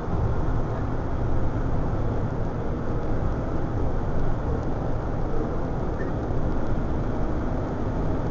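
Steady engine and road noise inside a van's cabin while it drives at highway speed.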